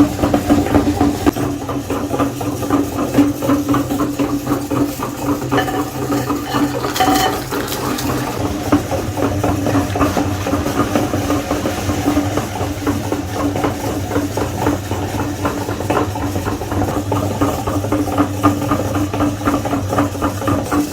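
Electric meat grinder running steadily, its motor holding a constant hum, with a dense fine crackle of food being ground through it.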